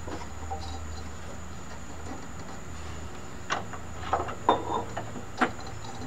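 A handful of sharp knocks and clanks in the second half, the loudest a little past the middle, from a drive belt being worked around the pulleys of a riding mower's cutting deck. A steady low hum runs underneath.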